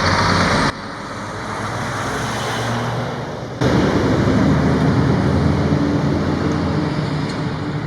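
A steady mechanical drone like a vehicle engine running, with sudden drops and jumps in level about a second in and again a few seconds later.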